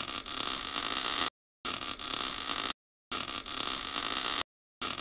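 Hissing sound effect of a cutting tool throwing sparks, coming in bursts of a second or so that cut in and out abruptly with short gaps of dead silence between.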